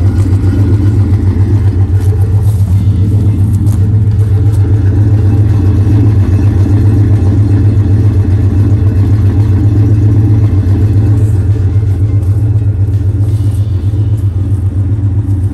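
1981 Dodge D150's built 318 V8, with a bigger cam, idling through a 3-inch Flowmaster exhaust, heard right at the tailpipe: a steady, loud, deep pulsing rumble. It grows a little quieter near the end.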